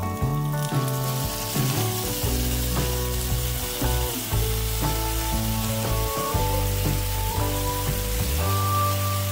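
Soy sauce, mirin and rice wine glaze sizzling and bubbling hard in a hot frying pan around seared eggplant slices as it reduces. The sizzle swells up about a second in. Background music plays underneath.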